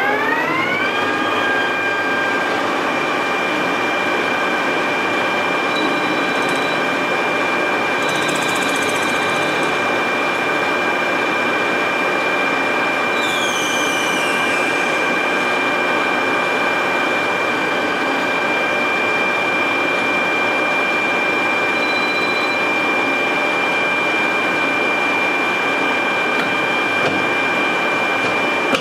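Precision Matthews PM 1440TL metal lathe finishing its spin-up with a rising whine, then running at a steady whine with a collet chuck holding a titanium rod. Twice, about a third of the way in and again near the middle, there is a short scratchy sound of the turning tool cutting the titanium.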